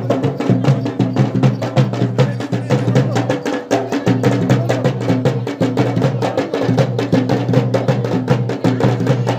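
Garhwali dhol and damau drumming, a fast, unbroken rhythm of rapid strokes, the traditional accompaniment for the Pandav Nritya ritual dance.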